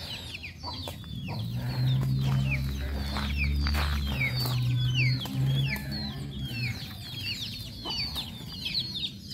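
Birds chirping without pause, many short high calls each falling in pitch. Under them a low steady hum, the loudest sound, starts about a second and a half in and fades out about two-thirds of the way through.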